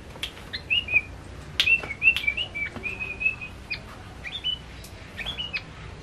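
Male yellow-vented bulbul singing a quick, bubbling run of short chirps and whistled notes in two or three phrases with brief pauses between them.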